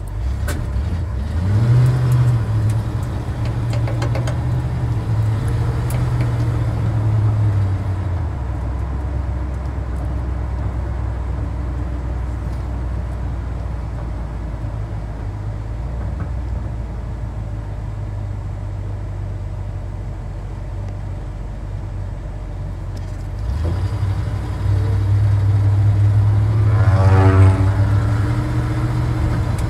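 Old Chevy K20 pickup's engine heard from inside the cab. It revs up as the truck pulls away about a second in, runs steadily through the middle, and revs up again near the end.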